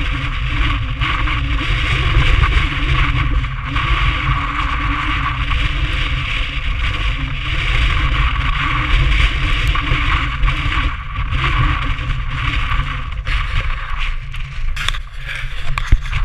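Strong wind buffeting the microphone in a snowstorm: a steady heavy rumble with a rushing hiss over it, and a few sharp knocks near the end.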